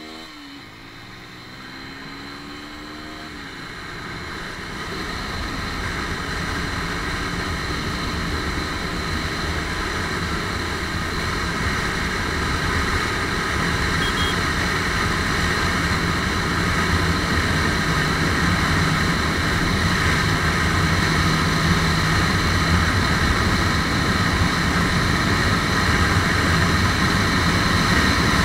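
Lifan KPR150 motorcycle's single-cylinder engine accelerating hard. Its pitch climbs through the gears in the first few seconds, then it holds high revs under a rush of wind that grows steadily louder as speed builds.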